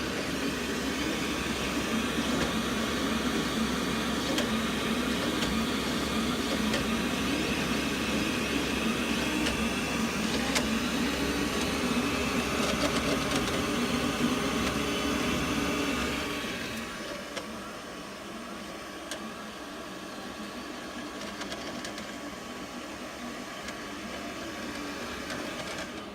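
3D printer running, its stepper motors and cooling fans making a steady mechanical whir with faint held tones; the sound drops noticeably quieter about sixteen seconds in.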